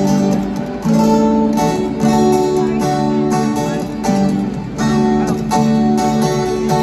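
Strummed guitar playing a repeating chord pattern, amplified through a stadium sound system: the opening bars of the song, before the vocal comes in.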